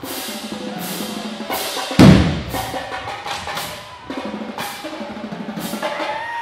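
Marching drumline playing: sharp stick and snare strikes in a driving rhythm, with a heavy bass-drum hit about two seconds in.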